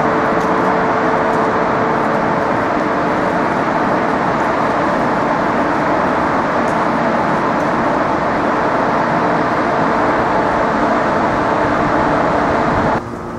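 Steady, loud city traffic noise on a street, an even roar with a faint hum in it, cut off suddenly about a second before the end.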